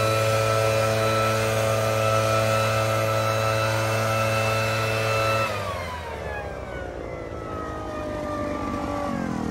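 Backpack leaf blower running steadily at a constant pitch. About five and a half seconds in it is throttled back, gets quieter and its pitch slowly sinks as it winds down.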